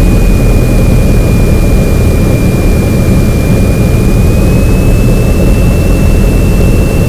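Cessna 172N's four-cylinder Lycoming engine and propeller droning steadily in the cockpit on final approach with power on. A thin, steady high whine sits over it and dips slightly in pitch, then rises again about four seconds in.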